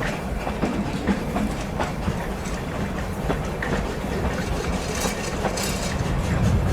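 Narrow-gauge train running along the track, its wheels clicking over the rail joints over a steady rumble from the carriages, growing louder near the end.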